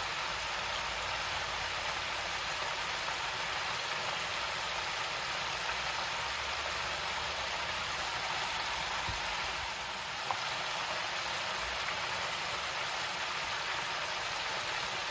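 Chicken pieces deep-frying in hot oil in a countertop electric deep fryer basket: a steady sizzle and bubble, with one short click a little past ten seconds in.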